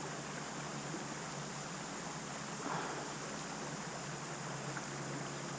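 Steady rushing of a creek's flowing water, with a brief soft handling sound about two and a half seconds in.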